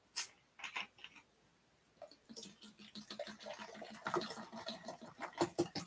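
A few light clicks as a cola bottle is handled, then cola poured into a cup from about two seconds in, a faint fizzing, crackling pour.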